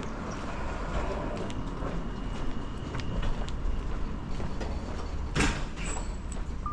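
Train noise: a steady low rumble with scattered clicks and knocks, and a short loud hiss about five and a half seconds in.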